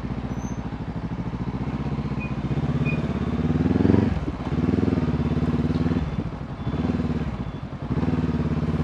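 Motorcycle engine heard from the rider's seat while riding through an intersection: the engine note climbs, drops sharply about four seconds in as the throttle is eased, climbs again, eases off twice more, then rises again near the end.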